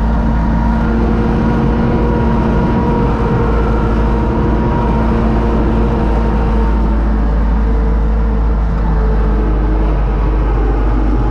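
Universal U650 tractor's four-cylinder diesel engine running steadily under load, heard from inside its cab.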